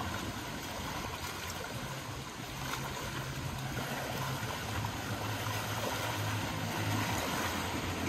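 Small waves breaking and washing over the stones of a rocky reservoir shore: a steady surf.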